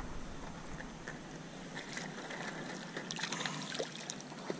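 Sea water lapping and trickling around a kayak, with splashing and dripping in the last couple of seconds as a floating mesh keepnet holding a live fish is dipped into the water.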